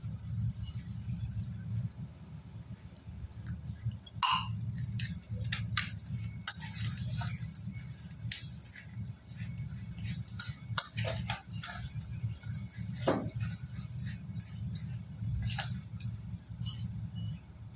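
A metal spoon stirring and scraping damp crushed slate-pencil paste in a stainless steel bowl, with irregular gritty scrapes and clinks of spoon on steel, over a steady low hum.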